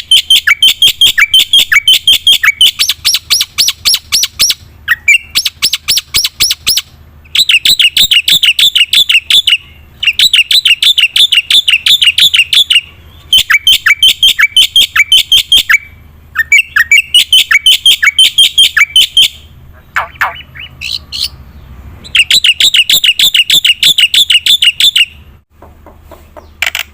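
A black-winged starling (jalak putih) singing hard: fast runs of sharp repeated notes, about five or six a second, in bursts of two to three seconds with short breaks. There are a few looser, separate calls about twenty seconds in, one of them a falling note.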